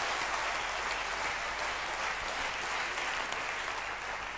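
Large seated audience applauding, a dense, steady patter of many hands clapping that eases off slightly near the end.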